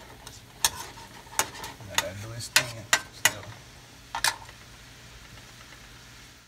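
A utensil stirring a mango and honey jam reducing in a frying pan, tapping and scraping against the pan about seven times, over a faint steady sizzle. The tapping stops about four and a half seconds in, leaving only the sizzle.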